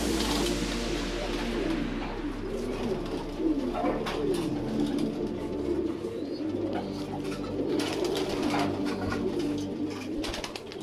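A flock of fancy pigeons cooing in a loft, many low coos overlapping, with a few sharp clicks among them.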